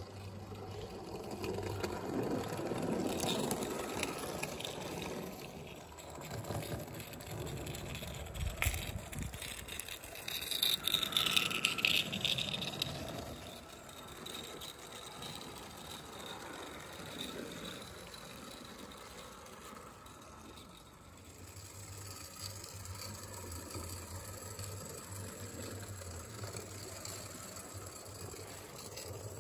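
Live-steam 16mm-scale Hunslet quarry tank model locomotive running along garden-railway track, with its train of small slate wagons rattling over the rails. Louder as it passes close in the first half, with the loudest stretch about eleven seconds in, then quieter and steadier as it moves away.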